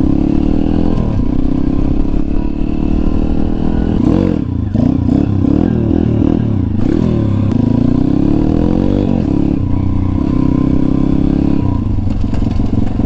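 A Kayo pit bike's YX 140cc single-cylinder four-stroke engine running hard while being ridden. Its pitch rises and falls several times through the middle as the throttle is worked, and it runs steadier at the start and near the end.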